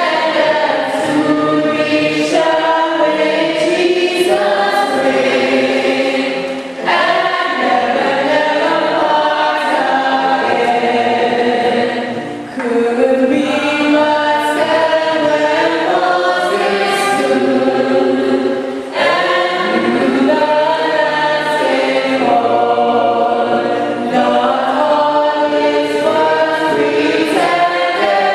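A choir singing a hymn, with phrases breaking off briefly about seven, twelve and nineteen seconds in.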